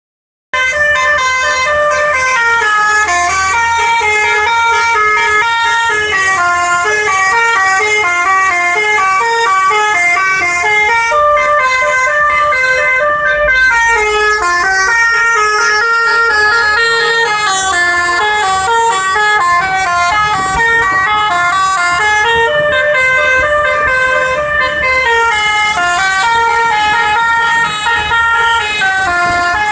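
Indonesian bus's telolet basuri musical horn playing a continuous melody of short, stepping pitched notes, loud throughout.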